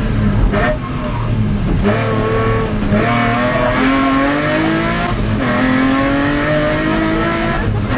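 BMW 325i E36 rally car's straight-six engine under hard acceleration, heard from inside the cabin. The revs climb steadily, drop sharply at an upshift a little after five seconds in, then climb again until another shift near the end.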